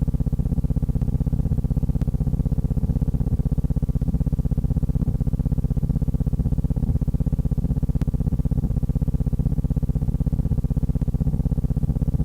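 Steady low electrical hum with a fast, even pulse, unchanging throughout, with a faint tick about two seconds in and another about eight seconds in.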